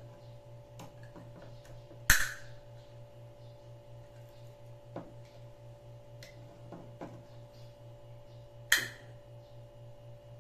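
A ring-pull tab on a can of pineapple juice snapping twice, about six and a half seconds apart, each sharp crack trailing off briefly, as the can is worked open. A steady low hum runs under it, with a few faint clicks.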